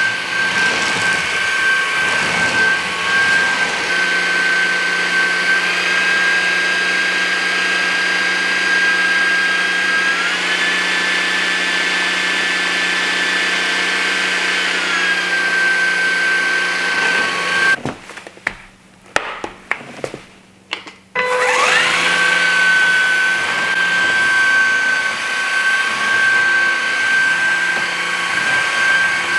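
Levoit LVAC-200 cordless stick vacuum's motor running with a steady high whine. About ten seconds in it steps up to a higher pitch for about five seconds as it is switched to a stronger power mode, then drops back. About eighteen seconds in it cuts out for roughly three seconds with a few clicks, then spins back up with a rising whine.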